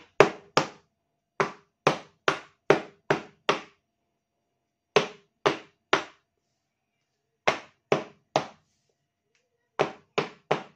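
A loaf pan full of banana bread batter being banged down on a countertop, sharp knocks in quick runs of three to six at about two to three a second, which settles the batter and knocks out air bubbles before baking.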